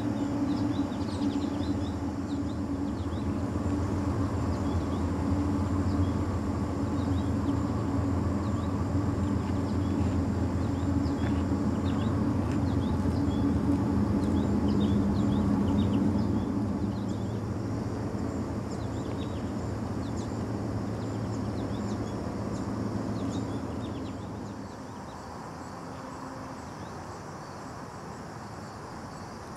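Steady low rumble of distant road traffic that dies down over the last several seconds, with scattered short high chirps above it.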